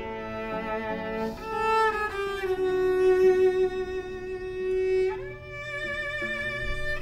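Violin playing a slow melody: a long held note, then an upward slide to a higher note about five seconds in, over lower accompanying notes.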